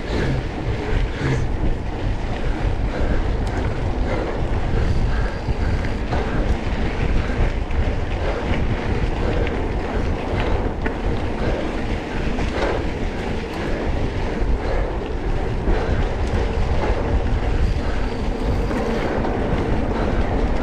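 Off-road vehicle running steadily on a trail, with heavy wind buffeting the microphone.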